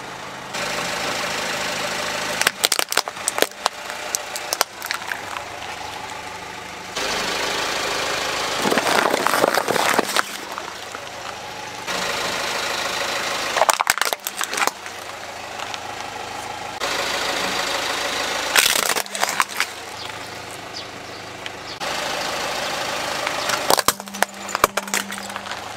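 Hard plastic toys cracking and snapping as a car tyre rolls over and crushes them, in about five short bursts of sharp cracks, over the car's engine idling steadily.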